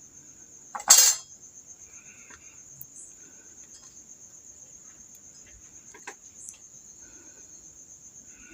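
A cricket's steady high-pitched trill throughout, with one short sharp click about a second in and a few faint small clicks from handling as the cut piece of stand is taped onto the LED panel with black tape.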